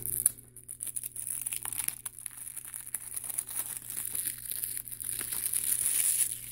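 A plastic Blu-ray case being handled and opened: crinkling and rustling with small clicks, growing louder near the end.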